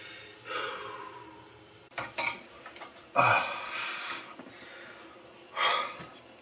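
A man's heavy, effortful breathing, three noisy breaths, as he strains with a wrench to loosen an old rusted tap fitting under a sink, with a couple of sharp clicks about two seconds in.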